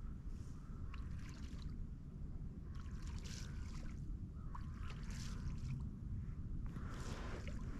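Low, steady rumble of handling and wind on a set-down camera in a kayak, with short rustles of clothing or gear about every two seconds.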